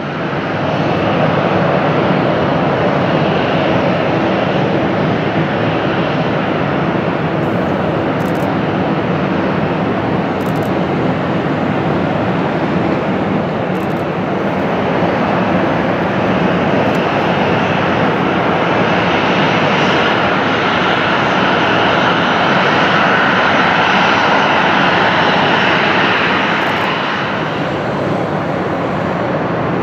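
Jet engines of a Boeing 737-800 running at low, taxi-level power: a steady rumble and hiss that grows somewhat brighter for a few seconds in the later part.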